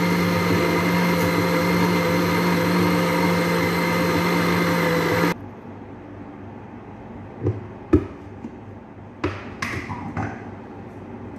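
Electric blender motor running steadily, then cutting off suddenly about five seconds in. A few knocks and clunks follow as the blender jar is handled.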